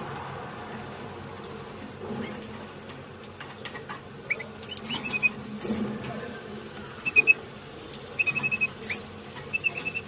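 Canary nestlings cheeping in the nest: short high squeaky chirps, sparse at first and coming in quick clusters from about halfway through.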